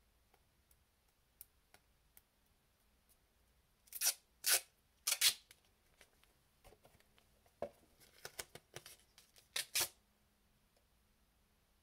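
Silver duct tape being pulled off its roll in short ripping bursts: four loud rips about four to five seconds in, smaller crackles as the tape is handled, and two more rips near the end. A few faint scissor clicks come in the first two seconds.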